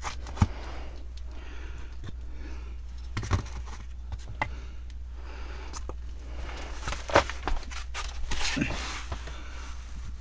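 Wooden blocks and scraps being handled and wedged under a PVC pipe: scattered knocks and scrapes with rustling of cardboard and plastic, the sharpest knocks about half a second in and about seven seconds in, over a low steady hum.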